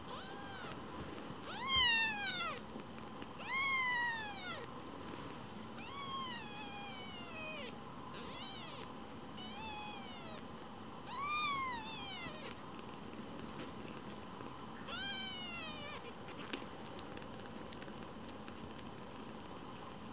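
A very young kitten mewing high-pitched, about eight separate short mews, each rising then falling in pitch. The mews stop about three-quarters of the way through.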